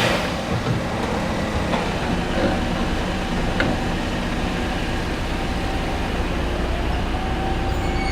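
A hybrid car's wheels turning on the rollers of a brake-and-speedometer tester, making a steady mechanical running noise with a low hum. The noise is being listened to for an abnormal sound. A faint steady tone comes in about six and a half seconds in, and there are two faint clicks.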